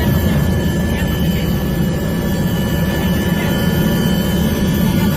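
Steady engine drone with a constant high whine over it, unchanging throughout.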